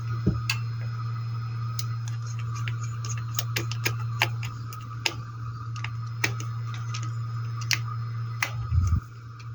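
Sharp, irregular small clicks and taps of hand tools and wires being handled while soldering a hair dryer's power cord to its switches, over a steady low hum. Near the end a heavier knock comes and the hum stops.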